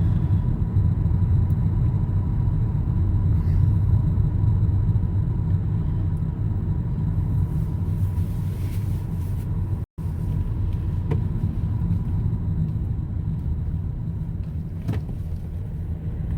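Steady low road and engine rumble heard from inside a moving car's cabin, with a faint steady whine above it. The sound cuts out completely for a moment about ten seconds in.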